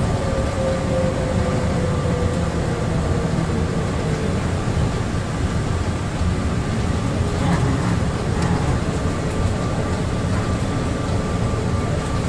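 Rubber-tyred SFO AirTrain people mover running along its concrete guideway, heard from inside the car: a steady low rumble, with an electric drive whine that falls slightly in pitch over the first few seconds and a faint steady high tone.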